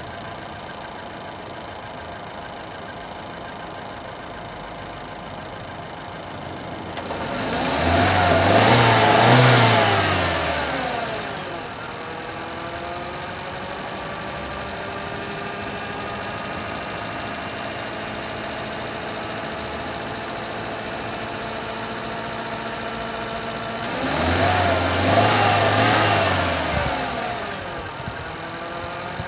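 Renault Megane III's 1.2-litre turbo four-cylinder petrol engine (H5F) idling, heard from the engine bay, revved up and back down twice for about four seconds each. Its unusual noise could point to an exhaust system fault such as a leak or worn component, which is not unusual at 212,000 km.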